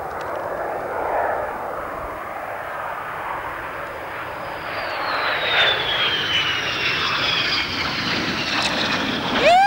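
Dassault Mirage fighter's SNECMA Atar 9C turbojet running at approach power as the jet lands and passes close by, a steady jet noise with a whine that slides down in pitch from about halfway through. Near the end a loud steady tone starts abruptly.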